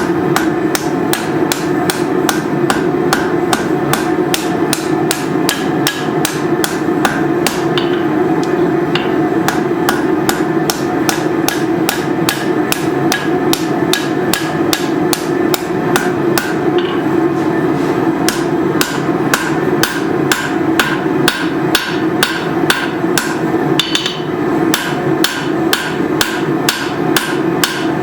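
Blacksmith's hammer forging hot leaf-spring steel into a knife blade, striking in a steady rhythm of about two to three blows a second over a continuous hum.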